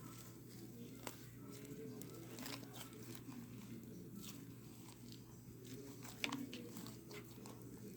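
Faint handling noises as slime is worked and decorated by hand: scattered small clicks and crinkles, with a sharper click about a second in and another just past six seconds.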